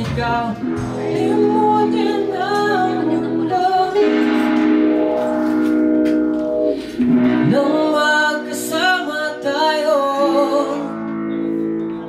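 Live rock band playing amplified electric guitars and bass, with a singer carrying the melody.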